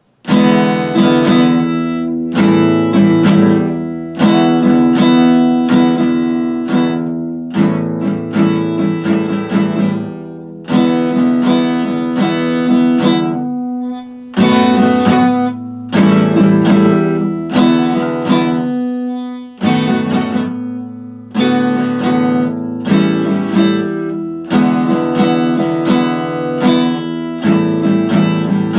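Epiphone acoustic guitar strummed in chords, starting a moment in, with a few short breaks between phrases.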